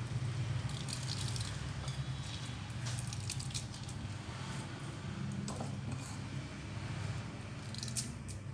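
Handfuls of wet grated potato squeezed by hand, squelching as the water is wrung out into the bowl, in irregular bursts that are busiest in the first half and again near the end. A steady low hum runs underneath.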